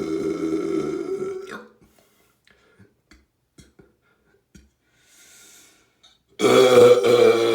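A person belching: one long burp trails off about a second and a half in. After a quiet pause with a few faint clicks and a brief soft hiss, another long, loud burp starts near the end.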